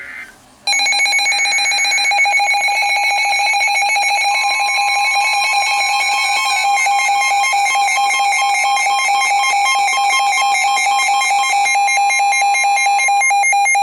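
Emergency Alert System attention signal: a loud, steady two-tone alarm that starts under a second in and holds for about 13 seconds before cutting off suddenly. It marks the start of a broadcast severe thunderstorm warning.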